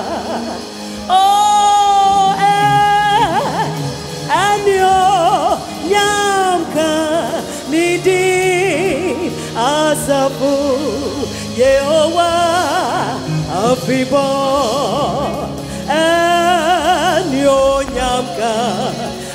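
Live gospel singing by female voices, with wide vibrato, in phrases of a second or two. Instruments hold sustained low notes underneath.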